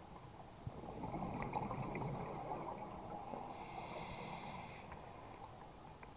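Scuba diver breathing through a regulator underwater: a long exhalation of bubbles that swells about a second in and slowly fades, with a faint high whistle for about a second in the middle.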